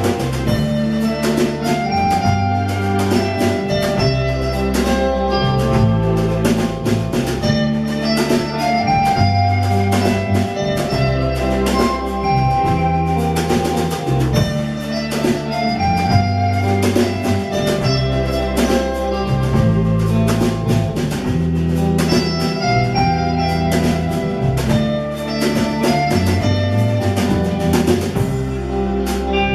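Instrumental band music: an electric guitar melody over electric bass and a drum kit, the bass changing notes about once a second under a steady beat.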